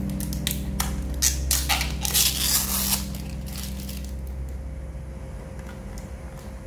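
Thin clear plastic packaging crinkling, with sharp clicks from fingers on a hard clear plastic drive enclosure; the crinkling is densest from about one to three seconds in, then the handling goes quiet.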